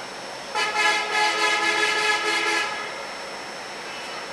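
MEMU electric local train's horn sounding one long blast of about two seconds, over the steady running noise of the train coming into the platform.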